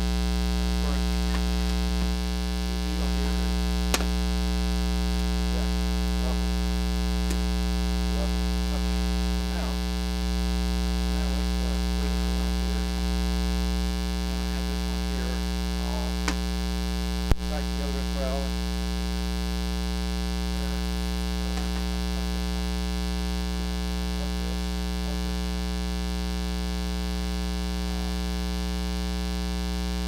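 Steady 60 Hz mains hum, induced into the camera's audio because the camera was powered from its AC adapter while recording: a ground-loop fault in the recording. A few sharp clicks sound over it, the loudest about seventeen seconds in.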